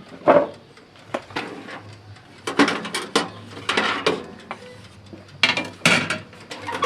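Clattering and knocking of kitchen metalware: a series of sharp knocks and rattles, the loudest about a third of a second in and again near the end.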